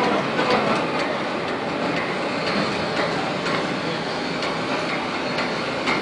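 Steady mechanical din of heavy industrial plant, with a few faint metallic clicks through it.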